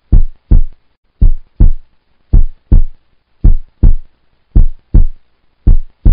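Heartbeat-style sound effect: deep paired thumps, lub-dub, about one pair a second, loud with silence between the pairs.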